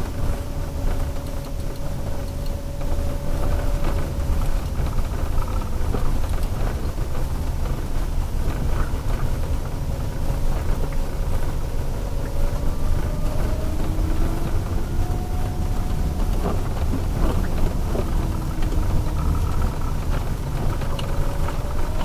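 Inside the cabin of a Toyota Previa converted to electric drive, moving on snowy road: a steady low rumble of tyres and road noise with no engine sound, and a thin whine from the electric drive that drifts slowly in pitch as the speed changes.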